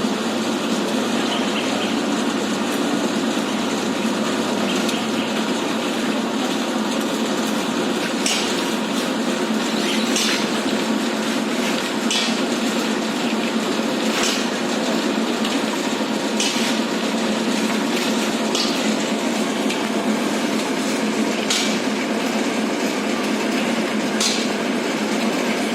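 Construction work: a steady, loud mechanical noise with sharp knocks, like hammer or metal strikes, about every two seconds in the second half.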